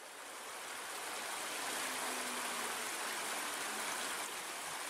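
Stream water rushing steadily over a small weir, fading in at the start.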